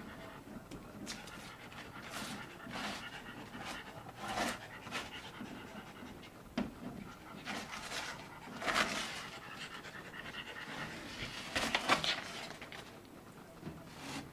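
Lakeland terrier panting hard, with irregular sharp rips and rustles as wallpaper is torn from the wall.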